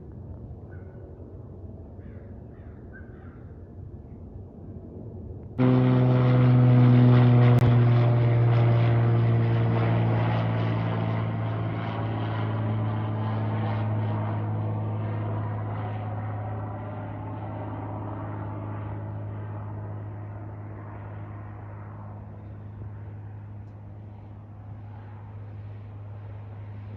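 An aircraft passing low overhead: a loud drone with a strong low hum and harmonics whose pitch slides downward as it goes by, then slowly fades. It comes in suddenly about six seconds in, over a faint outdoor background.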